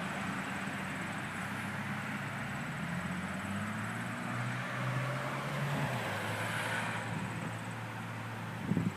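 A vehicle engine running steadily, a low hum that rises a little in pitch about three and a half seconds in and drops back about two seconds later.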